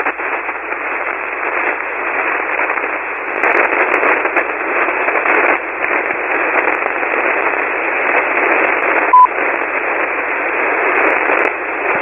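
Band noise from a single-sideband ham radio receiver on the 40-metre band: a steady, loud hiss of static on an open frequency with no station transmitting, swelling and easing slightly. One short beep cuts in about nine seconds in.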